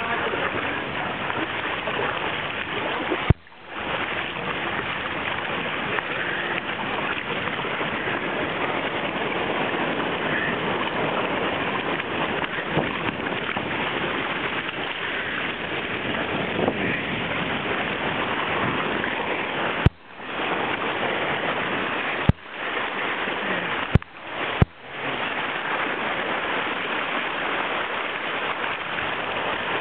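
Rushing, churning whitewater of an artificial whitewater course, splashing against a kayak close to the deck-mounted microphone. The sound cuts out briefly about five times, each time just after a sharp click.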